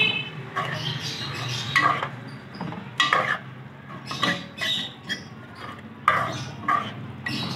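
Metal spoon stirring and scraping thick chicken-and-yogurt masala against the sides and bottom of an aluminium pot, in repeated strokes about one a second, over a steady low hum. The masala is being fried down (bhuna) until the oil separates.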